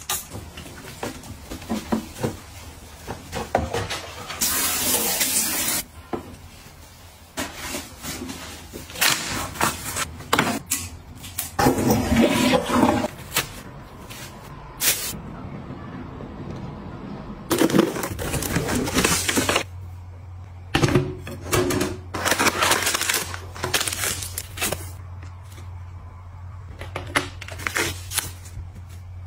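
Assorted clicks, taps and rustling bursts of containers and small items being handled and set down, in short irregular bouts. A steady low hum comes in about two-thirds of the way through.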